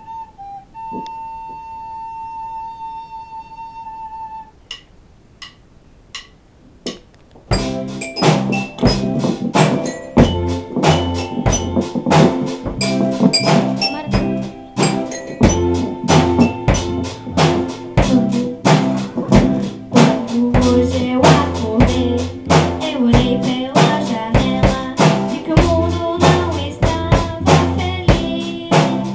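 A band with drum kit and bass playing its song. It opens on a single held high note, then a few evenly spaced sharp clicks, and the full band with drums comes in about seven seconds in.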